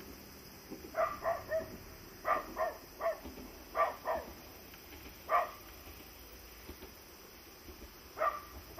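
A dog barking, about a dozen sharp barks in short runs of two or three, with a pause of a few seconds before the last pair.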